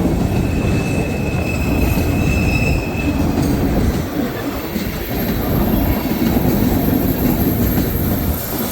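Freight cars of a long mixed freight train rolling past close by, a steady rumble and clatter of wheels on rail. A thin, steady high wheel squeal from the flanges on the curve rings over it for the first three seconds.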